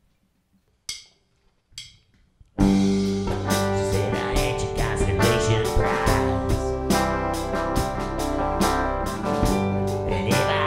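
Two sharp clicks in near silence, then about two and a half seconds in a small folk band starts a song all at once: electric guitar, banjo and flute over a steady, sharply struck beat, with a man singing.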